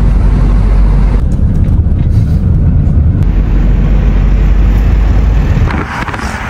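Car cabin noise while driving: a steady, heavy low rumble of engine and road. Near the end the rumble drops and a hiss comes in.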